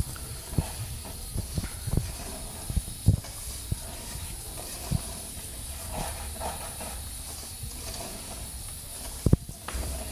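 Rice sautéing in hot fat in a pot on a wood-burning stove, a steady sizzle, with scattered low knocks and thumps, the loudest about nine seconds in.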